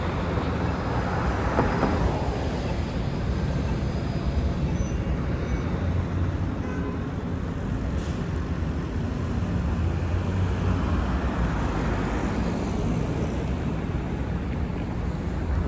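Street traffic going by: a steady low diesel engine rumble and road noise from passing buses and cars, swelling about two-thirds of the way through, with a brief short hiss about halfway.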